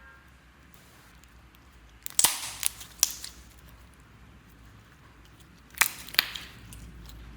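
Sharp, loud pops or snaps in two quick clusters: three about two to three seconds in and two about six seconds in, each dying away briefly.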